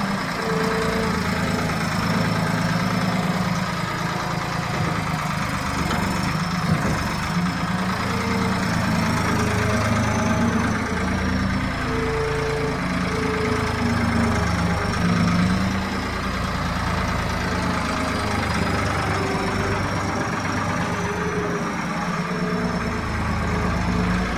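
The three-cylinder turbo diesel (Zetor 6801.54) of a UNC 080 skid-steer loader running steadily, with a thin high whine that wavers slightly in pitch.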